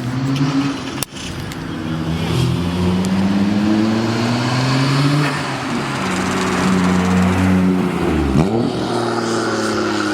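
A car engine and exhaust accelerating hard. The engine pitch climbs for about five seconds, drops back, then holds fairly steady, with a brief dip and rise near the end.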